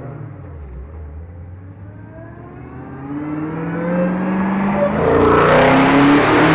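Dodge Challenger SRT Hellcat's supercharged 6.2-litre V8 pulling with its revs climbing steadily, then about five seconds in it jumps to a much louder full-throttle run under hard acceleration.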